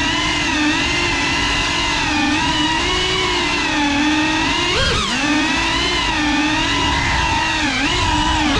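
GEPRC Cinelog 35 cinewhoop's brushless motors and propellers whining in flight, heard through its onboard camera. The pitch rises and falls with the throttle, with a quick sharp swoop up and back down about five seconds in.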